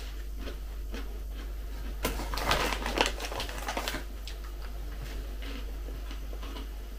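Crinkling and crackling of thin plastic packaging being handled, a dense burst of small crackles lasting about two seconds in the middle, with a few light ticks before and after.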